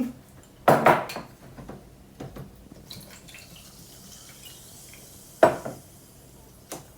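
Glass jar and glassware clinking and knocking, a few separate knocks, the loudest about a second in and again about five and a half seconds in.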